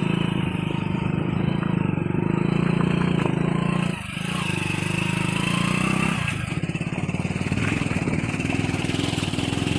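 Hero HF Deluxe motorcycle's small single-cylinder four-stroke engine running under load on a rough trail. Its note drops briefly about four seconds in and again about two seconds later, then rises again.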